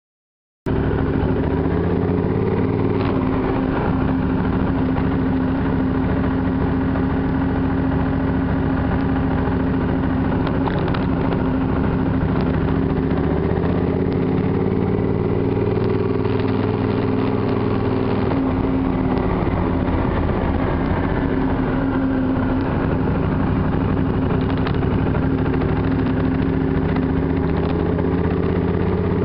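Triumph Thunderbird motorcycle engine running under way, cutting in just under a second in, its pitch rising and falling gently as the bike rides along.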